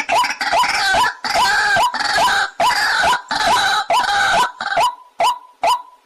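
White-breasted waterhen calling: a fast, even run of short repeated notes, about three a second. A harsher jumble of overlapping calls rides over them until near the end, when the repeated notes carry on alone.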